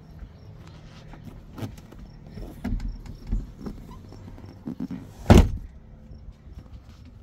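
Fibreglass boat's padded engine hatch being handled with a few soft knocks and bumps, then lowered shut with a single loud thud about five seconds in.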